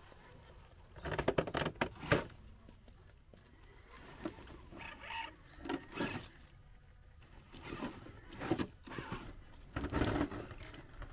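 1/10-scale RC rock crawlers' tyres and chassis scraping and knocking on rock as they climb, in irregular bursts of sharp clicks, with a cluster about a second in and another near the end.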